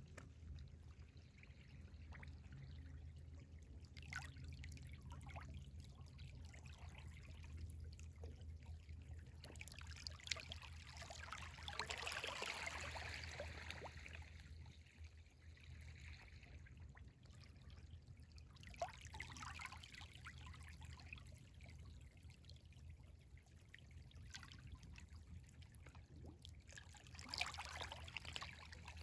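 Small waves of a rising tide washing in and lapping, a soft hiss with fizzing crackle that swells in surges every several seconds, strongest about a third of the way in and near the end. A steady low hum lies underneath.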